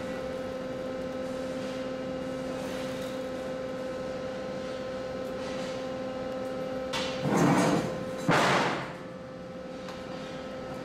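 Steady machine hum with a clear drone near 500 Hz. About seven and eight and a half seconds in come two loud bursts of noise, each about a second long, as bent thick steel plates are handled on a steel worktable.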